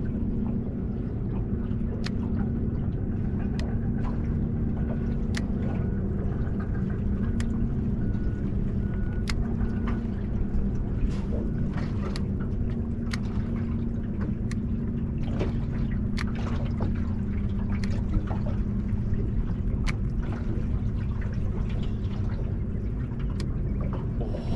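Water lapping and slapping against the hull of a small aluminium boat drifting on choppy water, with scattered sharp slaps. A steady low hum runs underneath.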